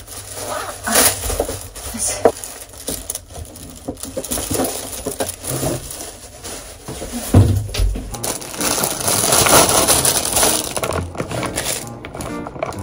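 Everyday handling noises: scattered clicks, knocks and rustling, with a longer stretch of rustling about three-quarters of the way through.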